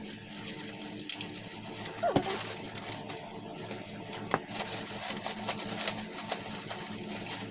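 Clear plastic packaging around a bedsheet crinkling and rustling as it is handled and pulled open, over a low steady hum. A short chirp sounds about two seconds in.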